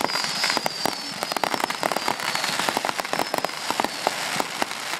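Fireworks crackling: a dense run of rapid small pops and snaps. High whistling tones fall slowly in pitch through the first half.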